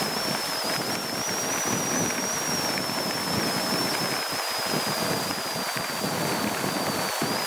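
Wind buffeting the microphone and water rushing past as a motorboat runs at speed, a steady heavy rush with gusty rumbling underneath. A thin high whine runs through it, drifting slightly in pitch.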